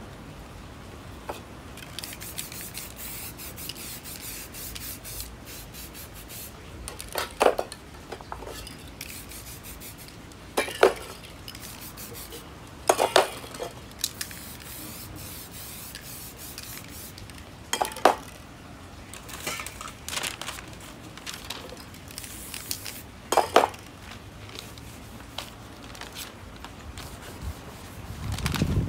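Aerosol spray-paint cans hissing in bursts, with several sharp metallic clinks as the metal cans are handled and knocked together or set down.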